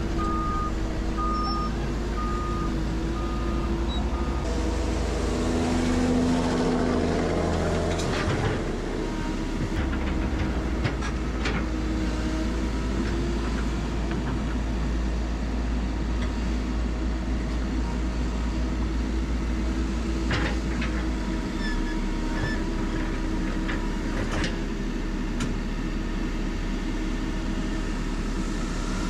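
Hydraulic excavator's diesel engine running steadily, its pitch and load shifting for a few seconds as the hydraulics work. A short series of evenly spaced high beeps sounds at the start, and a few sharp clanks of rock or steel come later.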